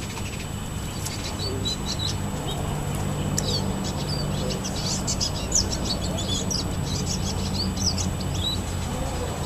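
Small birds chirping and calling repeatedly, busiest in the middle, over a steady low hum.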